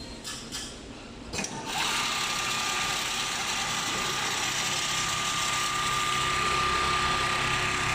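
Richpeace CNC automatic sewing machine starting up: a few short air hisses, then from about two seconds in a steady run with a constant whine, as it sews the zipper onto the jacket panel.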